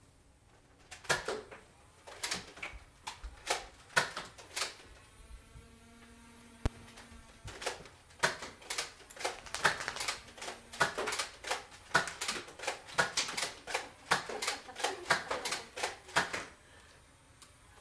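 Irregular sharp clicks and clacks, a few early on and then a busy run of two or three a second from about eight seconds in.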